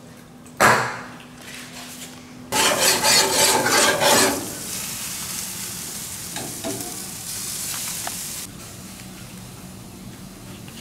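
Aerosol cooking spray hissing onto seasoned grouper fillets in short bursts: a brief spray about half a second in and a longer one from about two and a half to four seconds, followed by a fainter steady hiss.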